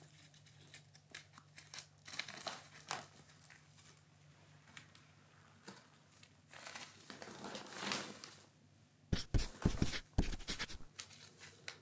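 Crinkling and rustling of a nylon cat tunnel as a kitten scrambles and paws inside it. Near the end comes a quick run of loud thumps, the loudest part.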